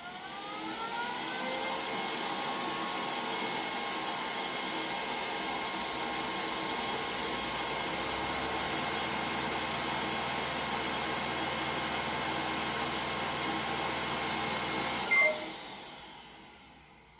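Neato D85 robot vacuum's suction motor spinning up with a rising whine, then running steadily. About fifteen seconds in there is a short loud blip and the motor winds down and stops: the robot fails to start cleaning and gives error 3000.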